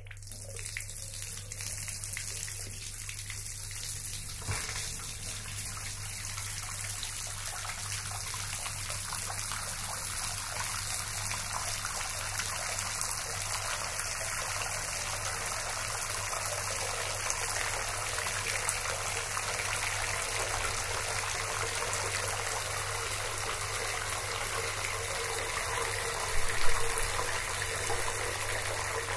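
Bathroom sink tap running, water gushing steadily into the filling basin. The sound grows slowly louder as the sink fills, with a brief louder burst near the end.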